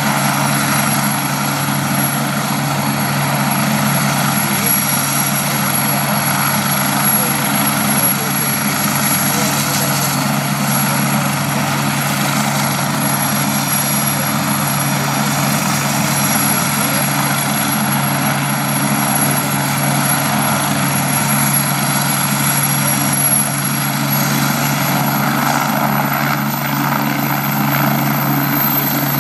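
Medical helicopter running on the ground before lift-off: its turbine engines and main rotor make a steady, unchanging drone.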